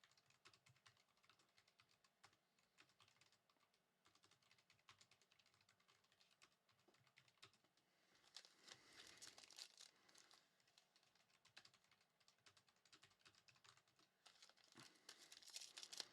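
Faint, quiet clicking and light rustling of trading cards being flicked through and handled, with a brief patch of louder crinkly handling about halfway through and again near the end.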